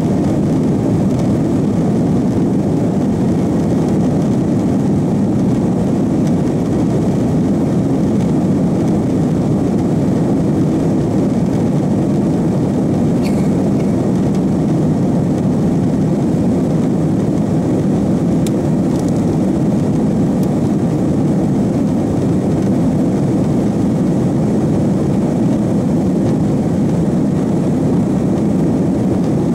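Cabin noise inside an Airbus A330-300 as it taxis: a steady low rumble from its General Electric CF6 turbofans and the rolling airframe, unchanging throughout.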